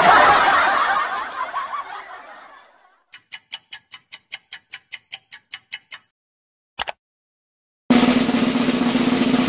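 A string of cartoon sound effects: a noisy burst that fades away over about three seconds, then about sixteen quick even ticks, roughly five a second, a single click, and from about eight seconds in a steady drum roll.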